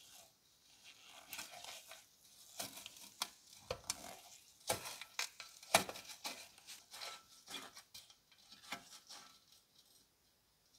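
Flat-blade screwdriver unscrewing a rusted slotted screw from a rusty sheet-steel stove housing: irregular scraping, creaking and sharp clicks of the blade in the slot and the corroded thread turning, dying away shortly before the end.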